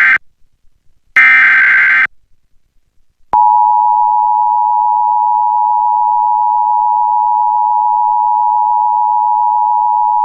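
Emergency Alert System broadcast tones: the end of the SAME header, screechy digital data bursts at the very start and again about a second in, then from about three seconds in the steady two-tone EAS attention signal (853 and 960 Hz) sounding without a break. It opens a real Local Area Emergency alert.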